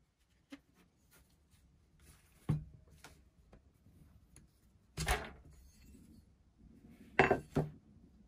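Metal parts of a Record No 50 combination plane knocking and clinking as it is handled and taken apart on a wooden bench: a few sharp knocks, the loudest about five seconds in and a quick pair near the end, with light scraping between.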